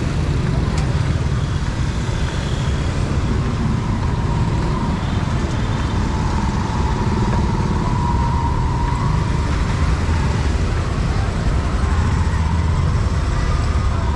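Busy street ambience: a steady rumble of passing road traffic, with an engine tone that swells and fades around the middle.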